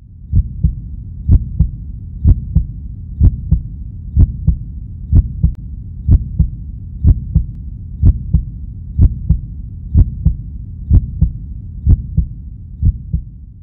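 Heartbeat sound effect: paired low thumps, a double beat about once a second, over a steady low rumble. It cuts off just before the end.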